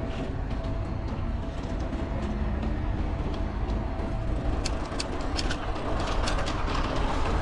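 Wind buffeting the microphone and tyre rumble from a bicycle ridden along a paved path. From about halfway through come irregular sharp ticks as it rolls down a grooved concrete ramp.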